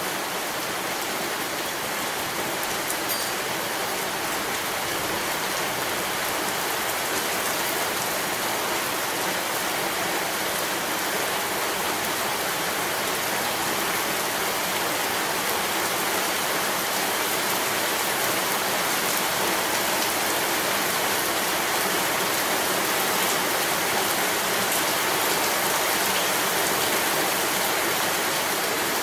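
Heavy rain pouring onto a paved, waterlogged yard and brick walls: a steady, dense hiss that grows a little louder toward the end.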